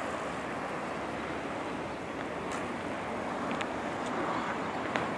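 Steady outdoor background noise, with a few faint short clicks scattered through.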